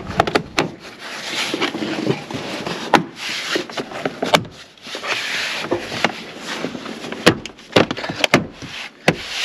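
Plastic interior sill trim in a Jeep Wrangler JL being pushed and worked back into place by hand: rubbing and scraping of plastic, broken by a string of sharp clicks and knocks as the trim clips snap in.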